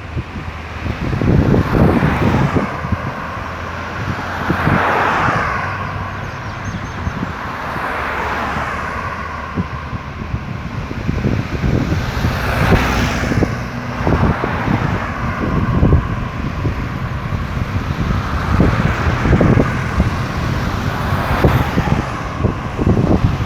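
Road traffic on a multi-lane highway: tyre and engine noise from cars passing one after another, swelling as each goes by, with wind buffeting the microphone.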